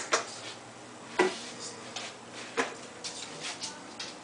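A few irregular knocks and clicks over a faint steady hum, the sharpest about a second in, with fainter ticks between them.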